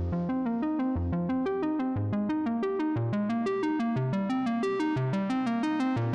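Electronic background music: quick synthesizer or keyboard notes over a steady bass beat about once a second.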